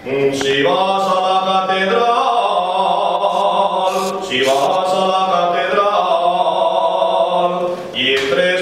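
A man singing unaccompanied in long held phrases, each note sliding through several pitches. The phrases break for a breath about four seconds in and again near the end.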